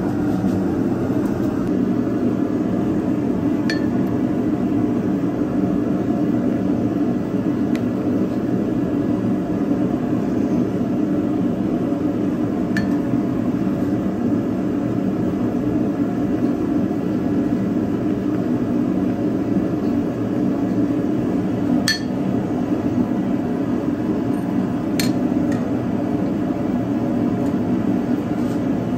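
A steady low rushing roar of running blacksmith-shop equipment, with a handful of sharp, light metal clinks scattered through it, the loudest about two-thirds of the way in.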